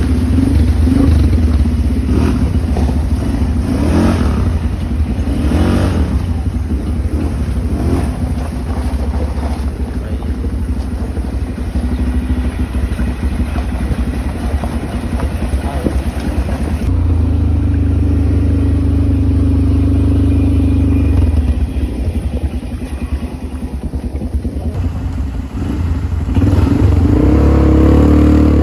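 ATV engine running while riding, a steady low hum. It grows louder and steadier for a few seconds in the middle and again near the end.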